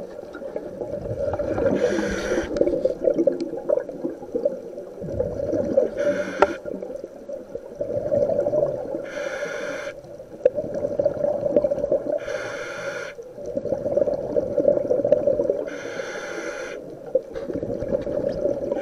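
A scuba diver breathing through the regulator of an OTS Guardian full-face mask: a hiss of about a second with each inhalation, five times at a steady pace of roughly one every three to four seconds, and exhaled bubbles gurgling in between.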